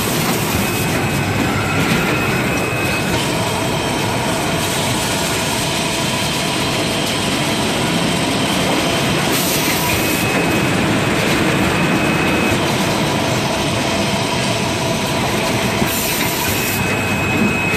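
Automatic kitchen towel roll packing machine and its conveyor belts running: a steady, dense mechanical clatter, with a thin high whine that comes and goes three times.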